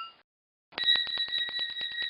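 A bell ringing with rapid, evenly spaced strikes stops just after the start. After about half a second of silence, a second, higher-pitched bell starts ringing continuously, at roughly a dozen strikes a second.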